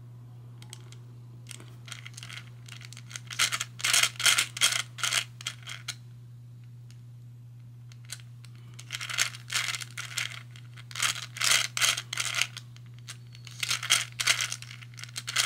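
Hungarian Rings puzzle being turned by hand: its balls click and rattle along the ring tracks in quick runs of clicks, in three spells separated by short pauses.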